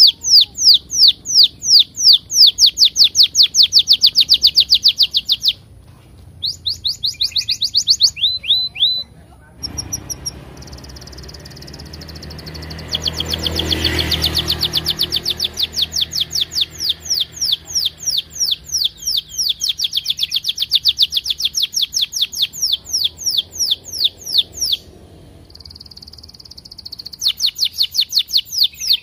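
Domestic canary singing long rolls of rapid, high repeated 'cuit cuit' chirps, each note sweeping downward, in runs broken by a few short pauses. A low rushing noise swells and fades under the song around the middle.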